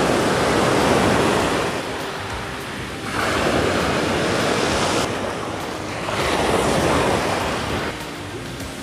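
Sea waves washing in and breaking in surges about every three seconds, with wind buffeting the microphone.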